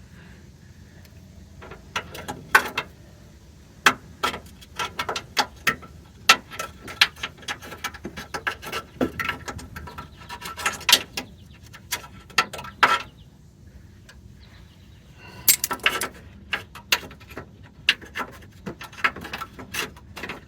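Irregular metallic clicks and clinks of tools and hardware being handled, in scattered runs with a pause of a couple of seconds past the middle.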